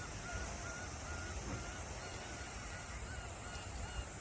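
A flock of gulls calling over one another, many short wavering cries overlapping throughout, over a low steady rumble of sea waves.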